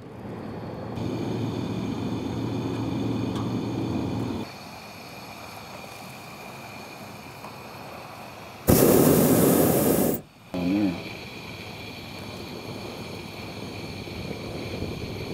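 Hot air balloon's propane burner fired once for about a second and a half, a little past halfway: a loud rushing blast that starts and cuts off abruptly. Before it, a low steady hum for a few seconds, over a quieter steady background.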